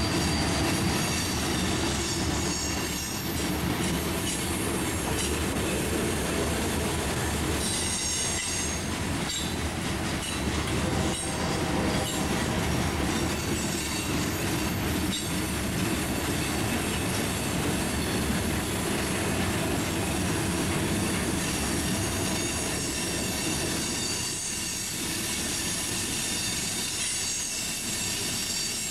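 Freight train cars, covered hoppers and boxcars, rolling past with a steady rumble of steel wheels on rail and thin high wheel squeals coming and going.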